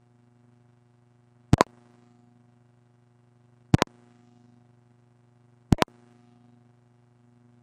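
A steady low electrical hum, with a sharp double click about every two seconds, three times. There is no speech on the track although the preacher is seen talking.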